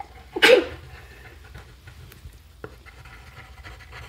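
A short, sharp puff of breath about half a second in, then faint scratching of a colored pencil on paper.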